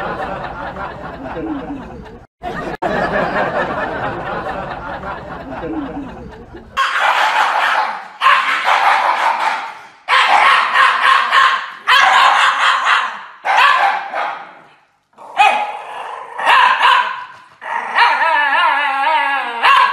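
Shiba Inu howling in a string of drawn-out calls about a second each, with short gaps between them, starting about a third of the way in and wavering in pitch near the end. Before that comes a muffled, noisy mix that can't be made out.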